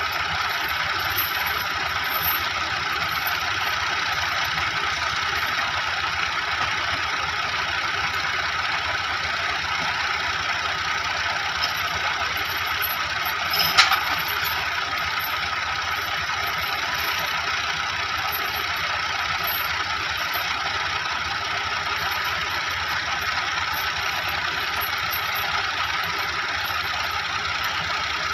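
Diesel tractor engines of a Massey Ferguson 375 and a Ghazi tractor idling steadily. A single sharp knock about halfway through.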